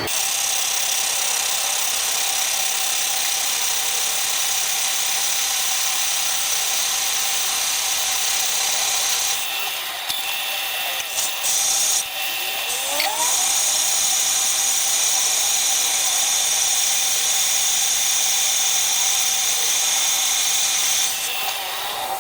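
Power tool cutting a cast-iron casting to make a sleeve: a steady high-pitched cutting hiss that drops off briefly about ten seconds in and again near the end.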